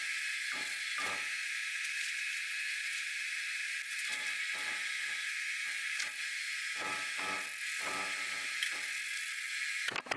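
Aerosol can of self-etching primer, fitted with a trigger grip, spraying in a series of short bursts. Under it runs the steady hiss of a ventilation fan.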